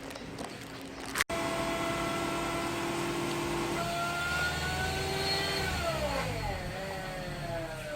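Kia New Carens (UN) running with its A/C compressor, a whine over the engine rumble that is the sign of a worn compressor bearing. After a short click about a second in, the whine holds steady, climbs in pitch about four seconds in, then drops and wavers as the revs change.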